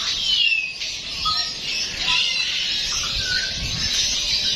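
Many birds chirping and calling at once in a busy chorus of short high chirps and whistles, with one clear falling whistle right at the start.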